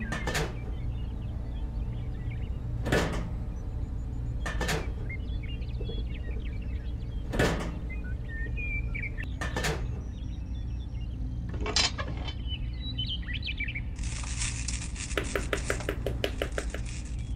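Sharp single clicks and knocks of small plastic model parts being handled and set down, every two seconds or so, over a steady low hum. Near the end comes a quick run of light taps as a small wooden mallet drives a miniature pole into the ground.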